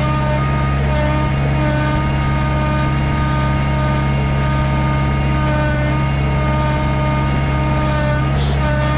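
An engine running steadily at constant speed, with a short hiss near the end.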